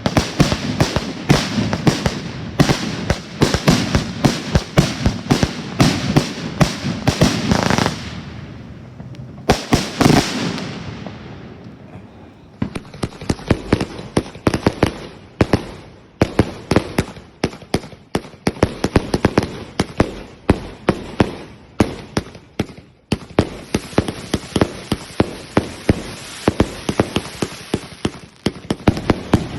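Fireworks going off: a rapid run of sharp bangs and cracks, then a single bigger boom that fades away slowly. After it comes continuous crackling with many sharp pops.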